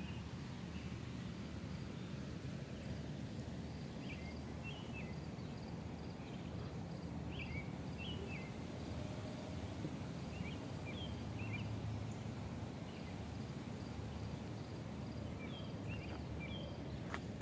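Outdoor ambience: small birds chirping in short clusters every few seconds over a steady low rumble, with a faint, even high pulsing throughout.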